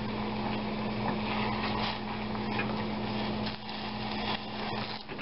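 Vinegar-and-wine reduction boiling hard in a small glass saucepan on a gas burner: a steady hiss and bubbling, with a steady low hum underneath and a few faint ticks in the second half.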